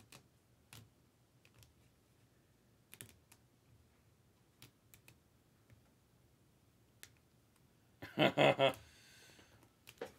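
Sparse light clicks and taps of typing on a phone, then a short, louder burst of about three quick pulses roughly eight seconds in.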